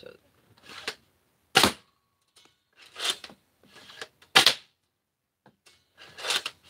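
Caliburn pump-action spring Nerf blaster being primed and fired: a softer pump stroke, then the sharp crack of the dart being shot, twice, a little under three seconds apart, with a third pump stroke near the end.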